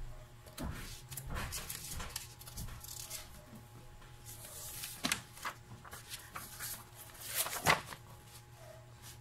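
Paper being handled and turned: a series of short rustles and scrapes, with the loudest, sharpest rustle about three-quarters of the way through as the printed page is changed. A steady low hum runs underneath.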